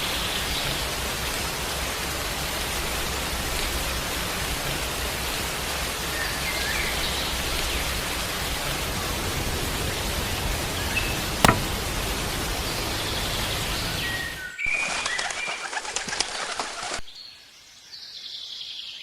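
A steady rushing noise with birds chirping over it and one sharp click partway through. Near the end the noise cuts off abruptly, leaving birds calling against a much quieter background.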